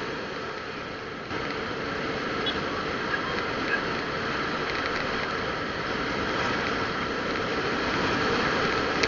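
Steady engine and road noise of a moving vehicle, heard from on board.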